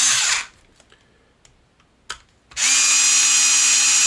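Cordless electric screwdriver driving small screws into an RC car's suspension parts. Its motor whine winds down about half a second in, a few light clicks follow, and about two and a half seconds in it starts again and runs at a steady pitch.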